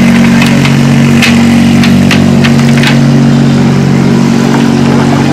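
Small boat engine idling steadily, with a few short sharp clicks and taps as fish are picked out of a cast net.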